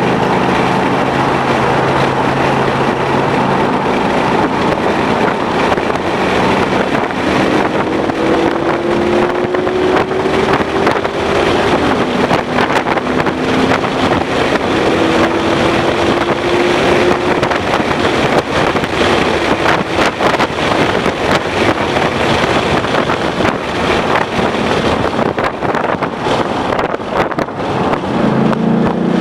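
Ford Mustang GT's 5.0-litre V8 running hard at speed, its engine note climbing slowly under acceleration, heard through heavy wind and road noise.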